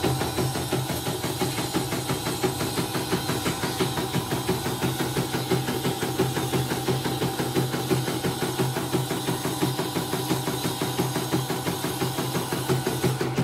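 CNY portable computerised embroidery machine stitching a design in its hoop, the needle bar striking in a fast, even rhythm over the steady hum of its motor. It is a test run after repair, and it runs without trouble.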